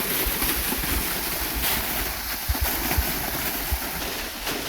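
Waterfall: a steady rush of falling water, with a few brief low thumps on the microphone about halfway through.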